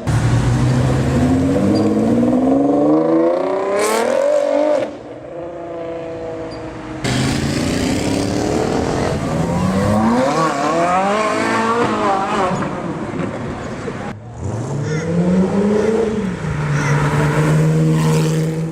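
High-performance car engines revving hard and accelerating, pitch climbing through each gear and dropping at the shifts, in several short cuts.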